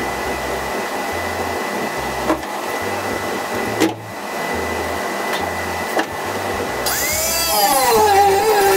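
A steady shop hum with a few sharp clicks. About seven seconds in, an angle grinder with a thin cut-off wheel starts cutting the car body's sheet steel, its whine dipping and wavering in pitch as the wheel bites into the metal.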